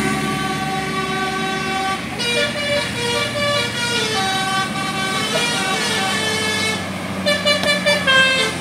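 Bus telolet basuri horn playing a melody of held notes, with a run of quick, short repeated notes near the end, over the low steady hum of the bus.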